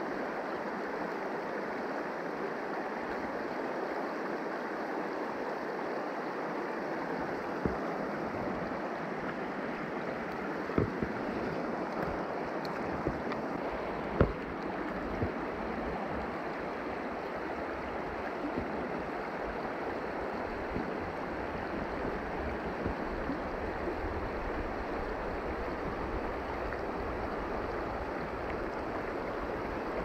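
Creek water flowing steadily, with a handful of short knocks, the loudest about 14 seconds in.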